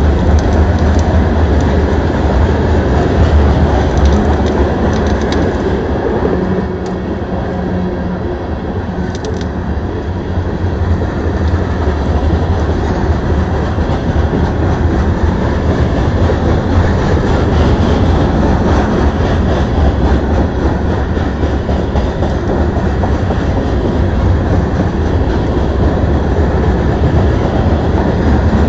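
Covered hopper cars of a CSX freight train rolling past close by: a steady rumble with wheels clattering on the rails, dipping slightly in level about seven seconds in.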